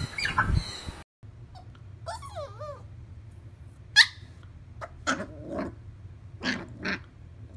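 A dog making a run of vocal sounds: a wavering whine, a sharp high yelp about four seconds in, then short barks near the end.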